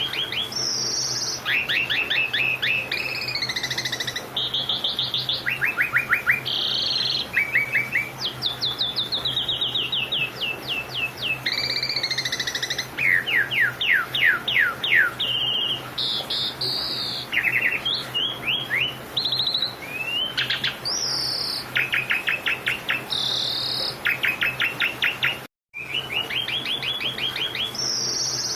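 A songbird singing continuously: rapid trills and quick runs of repeated chirping notes, changing from phrase to phrase, over a faint steady low hum. The song cuts out briefly near the end, then resumes.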